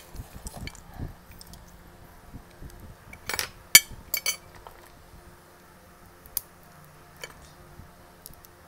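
Crab shell being cracked and peeled apart by hand: scattered sharp cracks and clicks, loudest in a quick cluster about three to four seconds in, with soft knocks against a glass dish.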